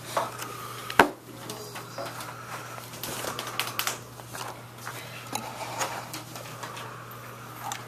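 Scattered clicks, taps and knocks of things being handled in a room, with one sharp knock about a second in, over a steady low hum.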